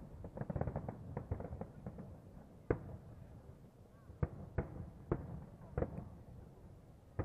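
Aerial fireworks shells bursting: a rapid flurry of bangs over the first two seconds, then single bangs about every half second to a second.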